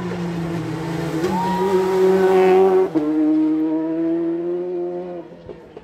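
Rally car engine held at high revs as the car approaches and passes close by. It is loudest just before its pitch drops suddenly about three seconds in, then it fades away.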